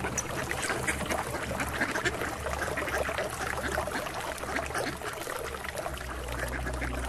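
A flock of domestic ducks quacking continually, many short overlapping calls, over the wash of small waves on the water.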